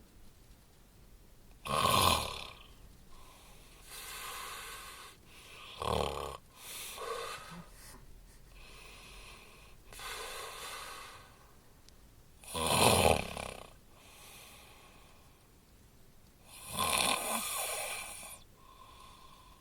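Snoring: four loud, harsh snores several seconds apart, each about a second long, with softer breathing snores between them.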